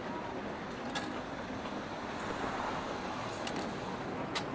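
Steady rainy-cafe ambience: a continuous hiss of rain over muffled room noise, with a few light, sharp clicks, the sharpest near the end.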